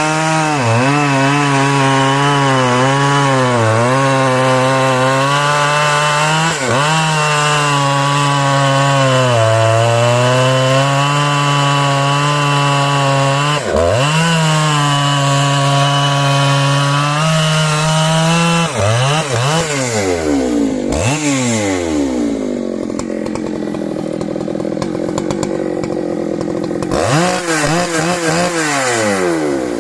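Big two-stroke chainsaw cutting into hard dry beech at full throttle, its pitch sagging and recovering as the chain bites. About eighteen seconds in the throttle comes off and the engine falls toward idle, with a short rev and a couple of throttle blips near the end.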